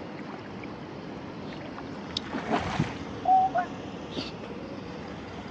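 Traffic hissing through standing floodwater on a road. About two and a half seconds in there is a louder swish of water, and just after it a brief high tone.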